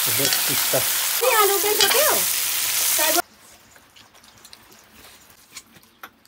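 Hot oil sizzling loudly as food fries in a pan, with a high, wavering voice-like call over it in the middle. About three seconds in the sizzle cuts off suddenly, leaving only faint clicks and knocks.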